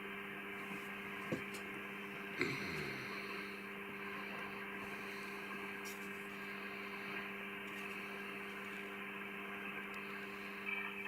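Ham radio receiver audio on the 80 m band: a steady hum over a narrow band of hiss, with a click a little over a second in and a short falling tone about two and a half seconds in.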